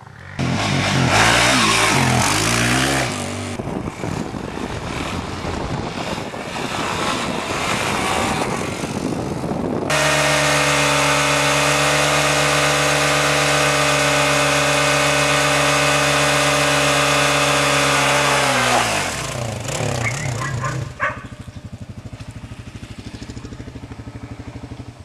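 Dirt bike engine revved hard during a burnout, its rear tyre spinning and smoking on the ground. About ten seconds in the engine is held at steady high revs for several seconds, then the revs fall away. Near the end it runs at a lower, even pace.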